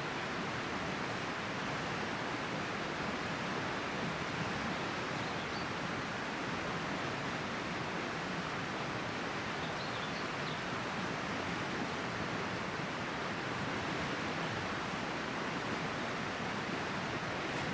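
River water flowing and rushing steadily, an even, unbroken sound.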